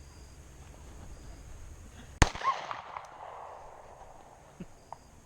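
A single pistol shot about two seconds in, sharp and loud, with an echo trailing off for about a second. Two faint clicks follow near the end.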